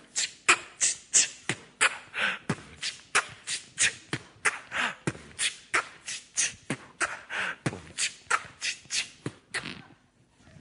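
Beatboxing: a repeated 'pu chi ka, chi chi pu ka' vocal-percussion pattern of kick, hi-hat and snare sounds made with the mouth, about three strokes a second, stopping about a second before the end.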